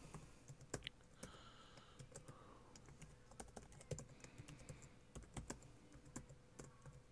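Faint typing on a computer keyboard: irregular keystrokes.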